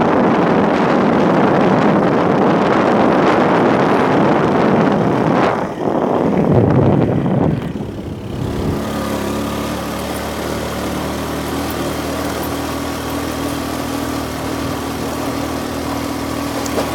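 Car on the move, with loud road and wind noise; about eight seconds in this gives way to a quieter, steady engine hum.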